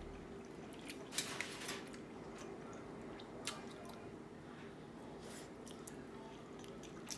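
Quiet eating sounds: a fork in a dish of baked mac and cheese, a few light clicks and soft squishy scrapes over a faint steady hum.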